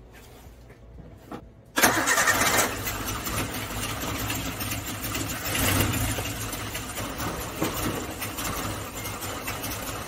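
Suzuki Samurai's four-cylinder engine started with its valve cover off and rocker arms exposed. It catches suddenly about two seconds in and then runs steadily.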